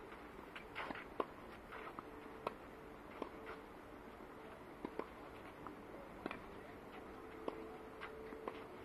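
Tennis ball struck back and forth in a rally, heard faintly: sharp hits about every second and a bit, over a faint steady hum.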